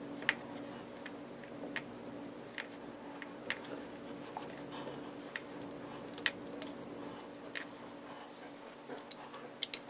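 Allen wrench turning the set screw back into a chrome Moen shower handle: light, irregular metal clicks about once a second as the key is turned and re-gripped, over a faint steady hum.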